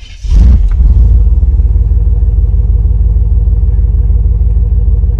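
A 1991 Chevy Silverado pickup's engine catching on the starter about a third of a second in, then running at a steady idle.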